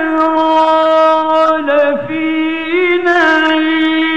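A male Quran reciter chanting in slow, melodic mujawwad style. He holds one long sustained note, broken briefly about two seconds in, then carries on with ornamented melodic turns.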